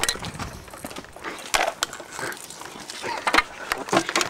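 Scattered knocks and footsteps, with a couple of sharp clicks about a second and a half in and again near three and a half seconds.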